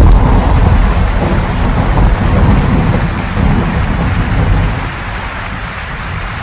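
Thunderstorm: steady heavy rain with a long roll of deep thunder, the rumble easing off over the last couple of seconds.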